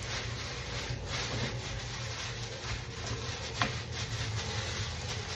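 Pepper marinade being rubbed into a fish: irregular rubbing and scraping over a steady low hum, with one sharp click about three and a half seconds in.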